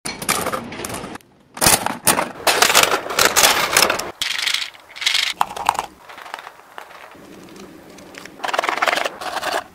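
Plastic handling noises in short bursts: a gachapon capsule-toy machine's coin crank clicking as it is turned, then plastic capsules and packaging rattling, scraping and crinkling in the hands, with a quieter stretch before a last burst near the end.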